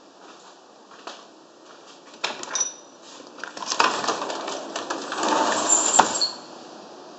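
Aluminium-framed glass sliding door being unlatched with a few sharp clicks, then slid open, rattling and scraping along its track with brief high squeaks. It ends with a sharp knock about six seconds in.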